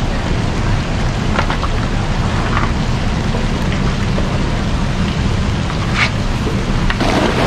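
A 10-foot cast net thrown from a boat, over a steady low rumble. The net swishes out about six seconds in, and its weighted edge hits the water about a second later.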